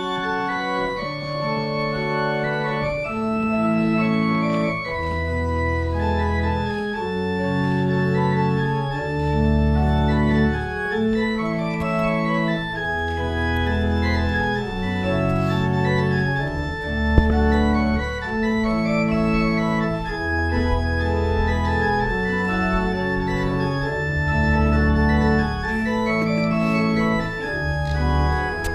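Church organ playing slow held chords over a deep pedal bass line, the low notes changing about once a second.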